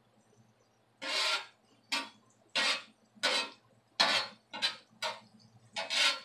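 Metal spatula scraping across a steel flat-top griddle, turning and pushing Brussels sprouts: about eight short, rasping scrapes in quick succession, starting about a second in.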